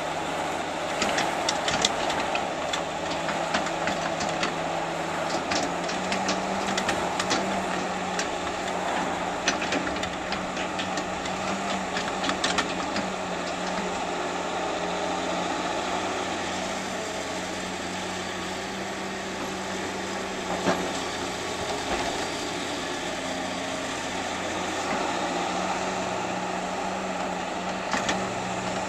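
Diesel engine of heavy demolition equipment running steadily, with scattered sharp knocks and clanks, most of them in the first half.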